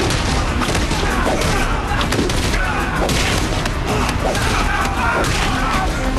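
Staged fist fight: a rapid, dense run of punches, hits and thuds.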